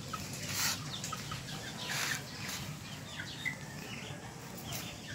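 Two dogs playing, with scuffling noises, plus a few short chirp-like calls in the background.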